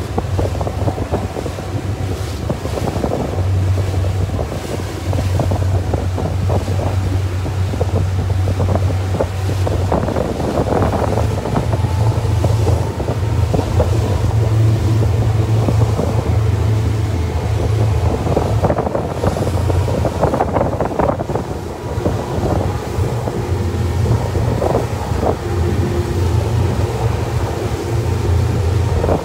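Small boat's engine running with a steady low hum, with wind buffeting the microphone and water rushing past the hull.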